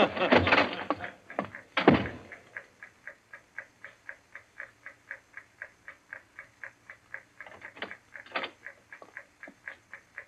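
A heavy thump about two seconds in, then a time bomb's clockwork fuse ticking steadily, about four to five ticks a second: the sign that the bomb is set and counting down.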